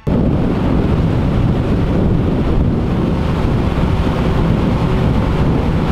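A boat's engine running at speed under heavy wind buffeting on the microphone, with water rushing past the hull; steady throughout.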